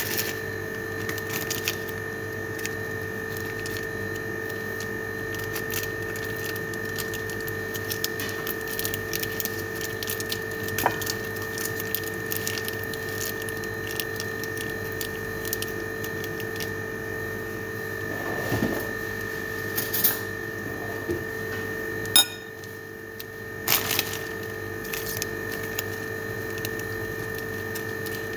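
Hands tearing open and squeezing instant-noodle seasoning and oil sachets over a plate: small rustles and clicks, with a few sharper clicks in the last third. Under them runs a steady, high-pitched machine hum.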